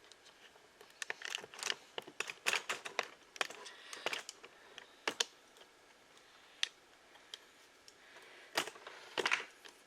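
Irregular small clicks and crunches of someone tasting a slice of frozen pie: a fork tapping and scraping the plate, and chewing.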